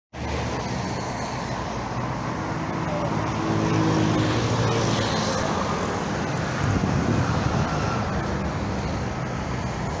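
Steady road traffic passing, with one vehicle's engine louder about three to five seconds in.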